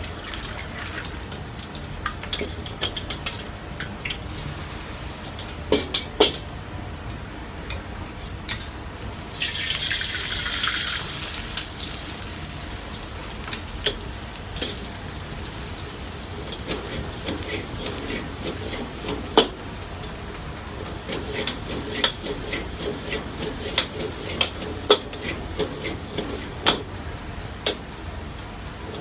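Stir-frying yakisoba noodles in a carbon-steel wok over a gas burner: sizzling under a steady rush, with a steel ladle clicking and scraping against the wok many times. About ten seconds in a louder sizzle surges for a couple of seconds, as food goes into the hot oil.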